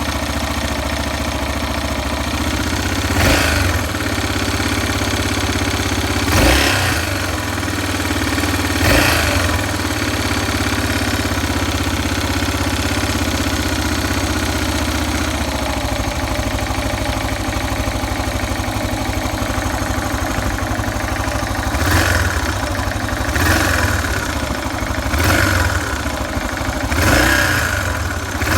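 Yamaha XT 600 (43F) air-cooled single-cylinder four-stroke engine idling while still cold. The throttle is blipped briefly three times early on and four times in quick succession near the end.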